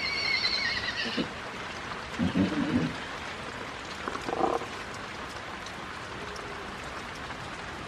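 A horse's whinny trails off with a wavering high call in the first second, over a steady hiss of rain. Two short low knocks or grunts follow, about two and four and a half seconds in.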